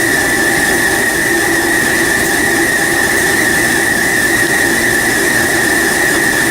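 Steady, loud mechanical noise with a constant high-pitched whine and no let-up.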